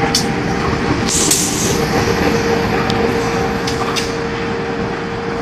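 A KAI CC 206 diesel-electric locomotive running light as it passes, its engine and running gear making a continuous steady noise with a held hum. There is a brief hiss about a second in and a few sharp clicks from the wheels on the rails.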